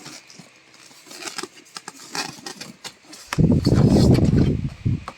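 Light clicks and handling knocks, then a sewing machine running for about two seconds, starting a little over three seconds in.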